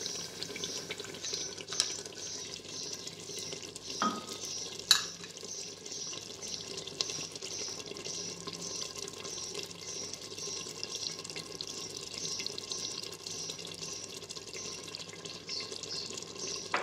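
Chicken curry gravy simmering in an open clay handi pot: a steady bubbling sizzle that pulses about twice a second, with a few light clicks and knocks of a spoon in the first few seconds.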